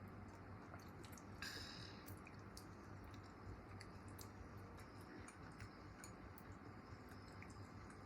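Near silence: faint chewing and scattered small clicks of eating over a low steady hum, with a short rustle about one and a half seconds in.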